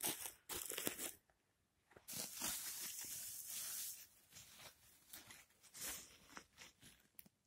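A hand brushing and scraping dry pine needles and forest duff aside: a run of rustling scrapes, a pause, then a longer scrape about two seconds in, followed by smaller scrapes.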